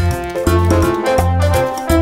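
Upbeat background music with a steady, bouncing bass beat.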